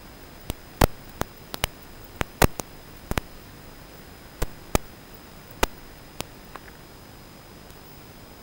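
Steady static hiss with a faint high whine, as recorded by an analog FPV goggle DVR, broken by about a dozen sharp clicks at irregular intervals that stop about two-thirds of the way through. No drone motor sound is heard.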